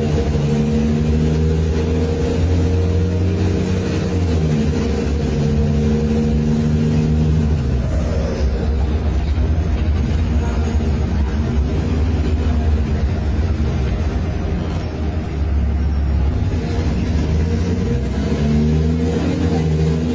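Cummins ISBe 6.7 straight-six diesel of an Agrale MT15 city bus, running on a free exhaust with no muffler, heard from inside the bus as it pulls. The engine note holds steady, shifts about a third of the way in, and starts climbing again near the end.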